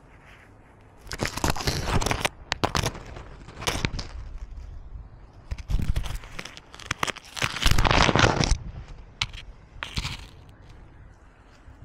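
Handling noise from a cat-worn Insta360 action camera: bursts of scraping and crackling as the camera rubs against the cat's fur and the gravel while the cat moves. There are about five bursts, each lasting a second or two, with the longest one in the second half.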